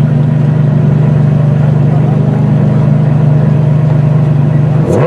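Supercar engine running loud at a steady, deep note. A quick sweep in pitch comes right at the end.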